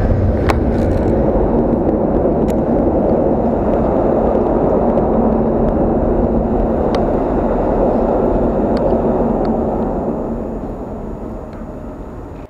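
Loud, steady vehicle rumble echoing inside a concrete underpass, fading over the last couple of seconds.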